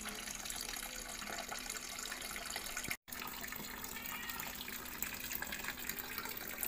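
Water from a small solar-powered pond pump pouring out of a tube into a shallow pebble-filled pond, a steady splashing trickle. It breaks off for an instant about three seconds in.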